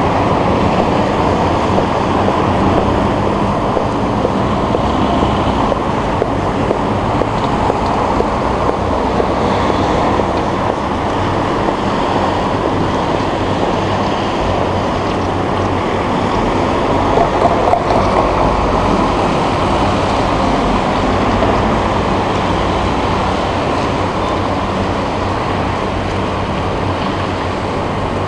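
Steady rushing noise of wind blowing across the microphone, with the level swelling and dipping slightly.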